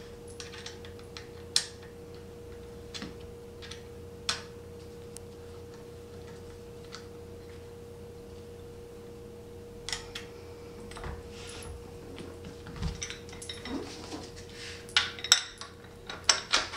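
Allen keys and a bolt clicking and clinking against a metal bench frame as a bolt is turned in by hand: a few light clicks, a quiet stretch in the middle, then denser, louder clatter near the end as the frame pieces are handled. A faint steady hum runs underneath.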